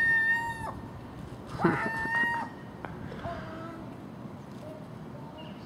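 Common gulls calling at garbage: two long, loud, level-pitched calls in the first two and a half seconds, then a few fainter, shorter calls.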